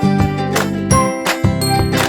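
Background music: an upbeat instrumental track with a regular beat and bright, tinkling bell-like notes over a steady bass line.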